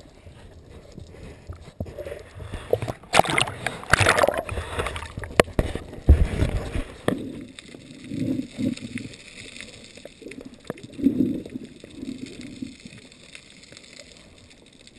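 Seawater sloshing and gurgling, with a louder rush of water about three to four seconds in and a string of low gurgles later on.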